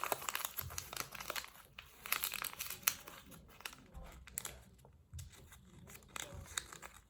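A sealed plastic Skrepysh blind-bag packet being crinkled and torn open by hand: irregular crackling with short pauses a couple of times.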